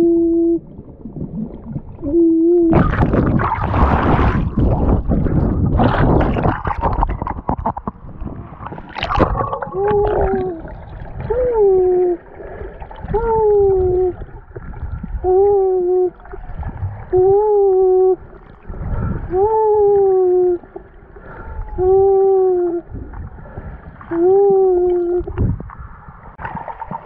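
A swimmer's voice underwater, hooting the same short call over and over to attract dusky dolphins. Each call lasts about a second and arches up and then falls in pitch, one roughly every one and a half seconds from about ten seconds in. Before that, for several seconds, there is loud rushing and bubbling of water.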